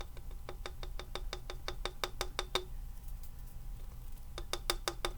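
Plastic glitter shaker container rattled hard against the hand, a quick run of sharp clicks about seven a second for two and a half seconds, then a shorter run near the end. No glitter comes out: a paper seal still covers the shaker holes.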